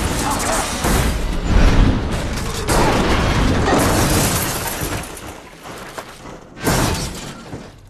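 Movie crash sound effects of a car overturning: metal scraping along the road, heavy impacts and shattering glass. The sound is loudest about two seconds in and dies down towards the end, broken by a sharp loud hit shortly before it stops.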